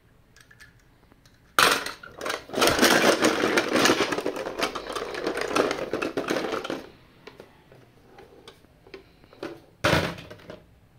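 Diecast toy cars clattering and rattling against each other in a clear plastic tub, a dense run of clicks starting about one and a half seconds in and lasting around five seconds. A few scattered clicks follow, then one sharper knock near the end.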